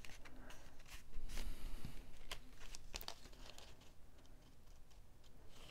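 Cardstock paper rustling and scraping as it is handled, with a clear plastic candy dome base pressed onto it, giving a few faint clicks and taps. The handling is busier at first and quietens toward the end.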